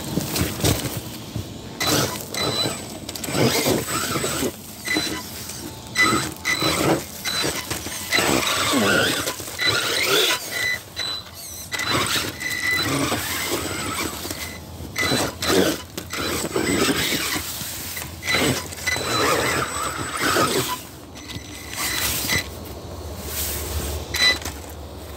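RC rock bouncer crawling over boulders. Its electric drive whines in short bursts of throttle, and its big tyres and chassis scrape and knock against the rock.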